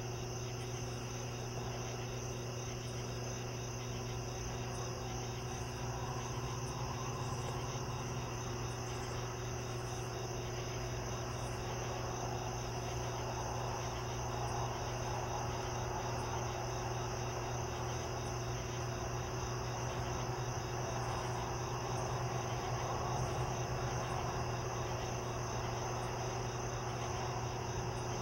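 A steady chorus of crickets chirping without pause, over a constant low hum.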